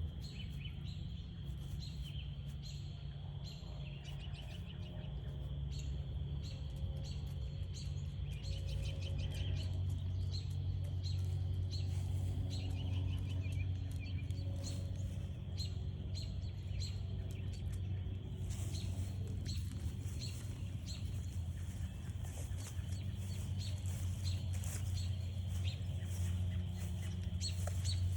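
Outdoor dusk ambience: birds chirping with short trills, and frogs calling, over a steady low hum.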